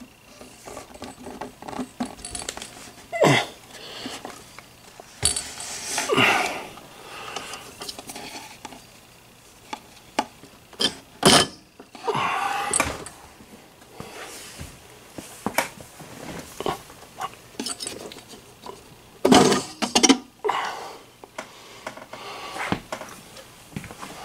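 Scattered clunks, scrapes and metallic clinks as the radio's metal chassis and its cables are handled and slid out of the wooden cabinet, with the loudest knocks about three, six, eleven and twenty seconds in.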